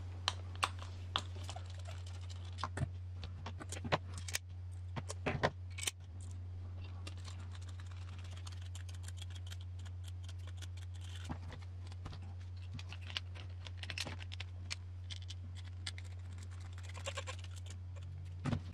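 Small clicks and taps of a hand screwdriver and hard plastic parts as small screws are backed out and driven in, fixing plastic rotopack cans to an RC crawler's plastic roof rack. The clicks come thick in the first several seconds and turn sparse after that, over a steady low hum.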